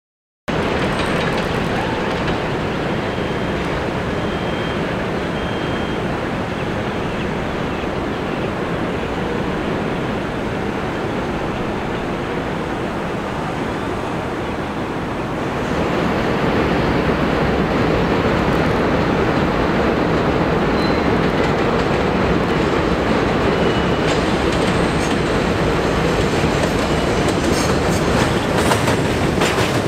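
R62 subway train on an elevated steel structure: a steady rumble and clatter of wheels on rail, growing louder about halfway through as the cars come round the curve close by, with a few faint brief wheel squeals.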